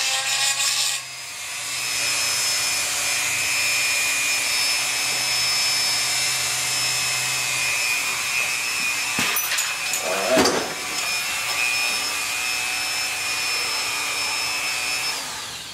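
Dremel 4000 rotary tool with a porting bit running at high speed, grinding out the port of a Chinese 80cc two-stroke bicycle engine cylinder for port matching. A steady high whine over grinding noise, with a short dip about a second in and a few knocks of the work partway through.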